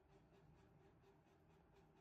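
Near silence, with a very faint, even run of soft ticks, several a second, over a low hum.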